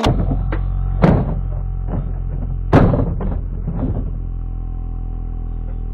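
Plastic toy dump truck tumbling down rocks, with two hard knocks about a second in and near three seconds, then a few lighter clatters, over steady background music.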